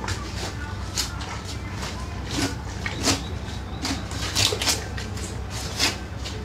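A large pirarucu being filleted: a knife cuts through its flesh and scaly skin in about eight short, irregular scraping strokes over a steady low hum.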